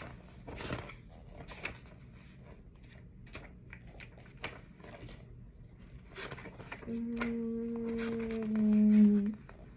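Pokémon cards being handled and flicked through: a run of small clicks and paper rustles. About seven seconds in, a person hums one long steady note for over two seconds, growing louder just before it stops.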